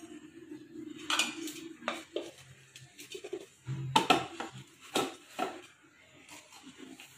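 Stainless-steel kitchen vessels clinking and knocking as they are handled: a steel bowl and a steel mixer-grinder jar with its lid are picked up and set down. There are several separate sharp knocks, the loudest about four to five seconds in.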